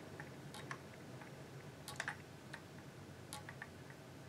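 Faint, irregular light clicks of knitting machine latch needles as yarn is wrapped by hand around them one needle at a time, the loudest about two seconds in.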